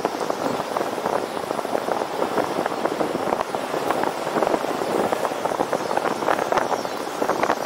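Continuous wind rush and buffeting on the microphone of a camera riding along on a road bicycle at speed, mixed with tyre-on-road noise.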